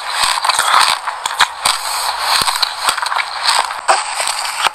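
Close-up chewing of a mouthful of black sesame seeds: a dense, crackling crunch with many sharp little clicks.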